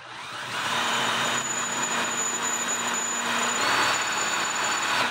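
DeWalt 20V cordless drill running a twist bit into a hardened steel clock mainspring, with a steady whine and a high ringing note from the bit on the metal. It spins up over the first half second, runs steadily, then cuts off suddenly. The bit is dull and struggling to cut the hard spring steel.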